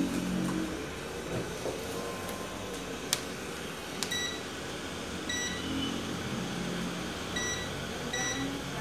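Digital multimeter's continuity beeper giving a series of short, high beeps in small groups from about five seconds in, after a couple of sharp clicks from the probes. The beep signals a short or very low resistance across the surface-mount capacitor being tested on the TV panel board.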